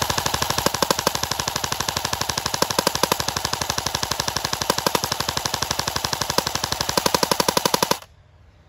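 Cybergun AKS-74U electric airsoft gun firing one long full-auto burst: a rapid, even stream of gearbox cycles and shots that cuts off about eight seconds in.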